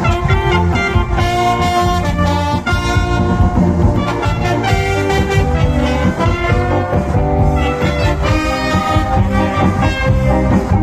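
Brass-led cha-cha dance music with a steady bass beat, played loud through a big mobile sound system.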